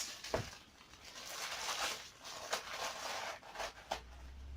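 Crinkly plastic wrapper of a pack of instant ramen rustling and crackling as it is pushed into a jacket pocket, with a few sharp clicks and a low hum near the end.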